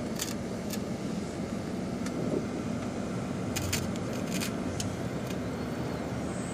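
Steady engine and road noise heard from inside a moving tour bus, with a few light clicks and rattles scattered through it.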